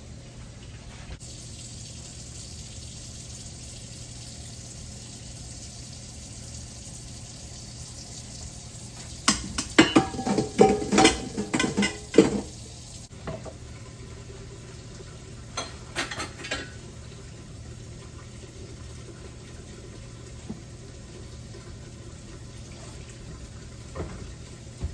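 Glass mason jars and their metal lids clinking and clattering in a cluster of knocks with a brief ringing tone about halfway through, then a few lighter clicks later, over a steady low hum.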